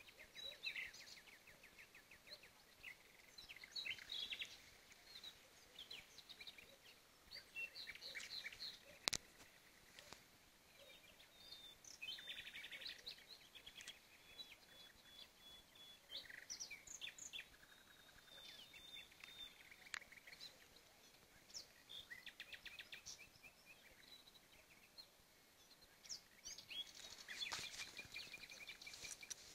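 Faint chorus of small animals calling in the dark: scattered high chirps, rapid trills and short thin held notes, with one sharp click about nine seconds in.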